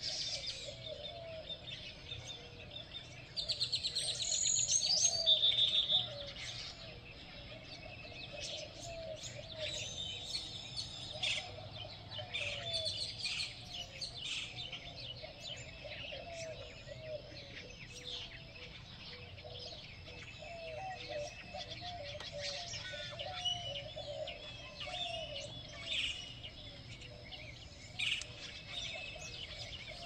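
Morning chorus of several songbirds chirping and singing, with a loud rapid trill from about three to six seconds in, and lower repeated calls running underneath.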